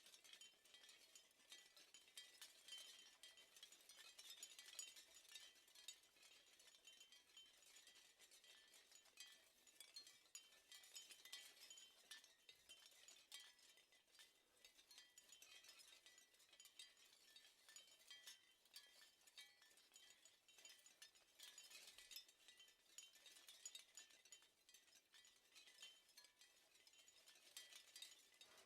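Shell wind chime clinking faintly and continuously, with a dense patter of small light knocks and faint ringing.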